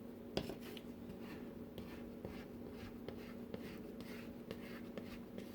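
Soft, irregular rubbing and light taps of hands working cinnamon-roll dough with flour on a countertop, over a faint steady hum.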